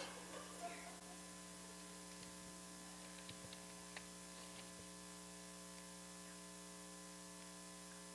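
Steady, faint electrical mains hum from the sound system, with a few soft clicks in the first second and one more about four seconds in.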